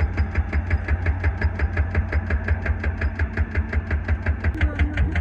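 Excavator running with a rapid, even knocking, about seven beats a second.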